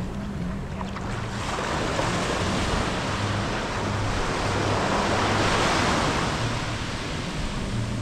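Ocean surf: a wave washing up the beach, building for a few seconds and then easing off near the end.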